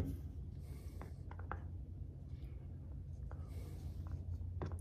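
Faint handling noises at the plastic oil-fill opening of a Predator 3500 inverter generator: a few light clicks and scratchy rubbing of fingers on the fill port, over a steady low hum.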